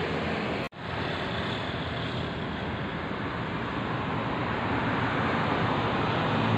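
Steady outdoor background noise, a rushing roar, broken by a brief dropout just under a second in and then growing slowly louder.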